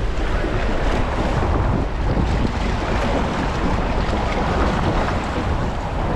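Steady strong wind buffeting the microphone, a dense rumbling rush with no distinct events.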